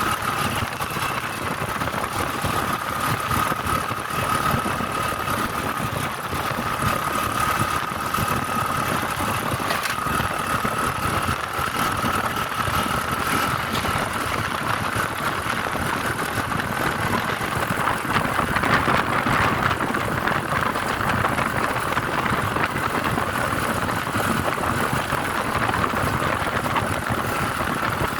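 Vehicle driving along a road: continuous engine and road noise with a steady high whine, swelling a little about two-thirds of the way through.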